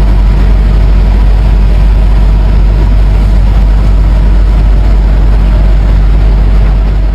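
A vehicle running with a loud, steady low rumble and an even rushing noise over it.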